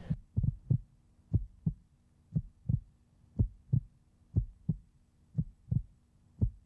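Heartbeat sound effect: slow, low double thumps, one lub-dub pair about every second, over a faint steady low hum.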